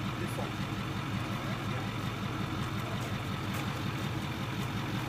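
Wheel-lift tow truck's engine idling steadily with a low, even pulse.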